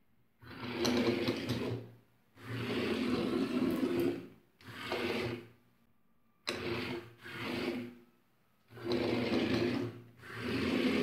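Small plastic-geared DC motors of a robot car whirring as they drive the wheels. They start and stop in about seven short runs with silent gaps between them, as the car is driven forward, turned and stopped.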